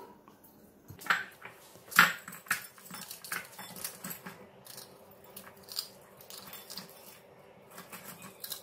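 Dry Maggi instant noodles being crushed by hand in a bowl: irregular crackling and crunching of the brittle noodle block breaking into small pieces, with a louder crunch about two seconds in.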